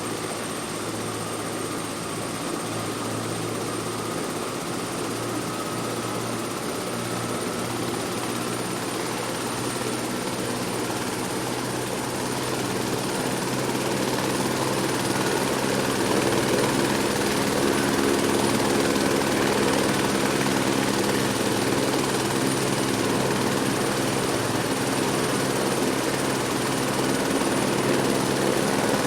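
Helicopter starting up: a high steady turbine whine over the engine's low running note, growing louder through the first half and then holding steady as it comes up to speed.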